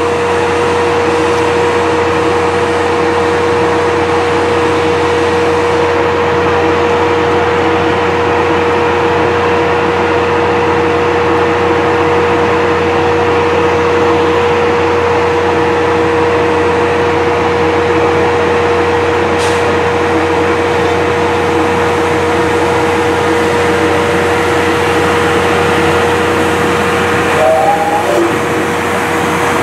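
Steam locomotive C57 180 running slowly tender-first: a steady hiss of escaping steam with a constant whine under it.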